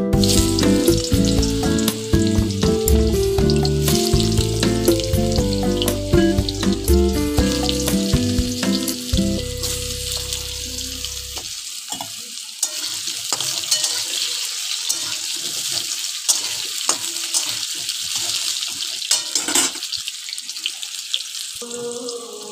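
Pumpkin pieces frying in hot oil in a wok: a loud sizzle starts suddenly as they go into the oil and keeps on, with scattered crackles. Background music plays under it for about the first half, then stops.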